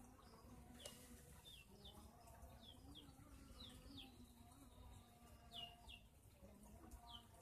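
Near silence with faint bird chirps: short, high, falling notes, mostly in pairs, every second or so.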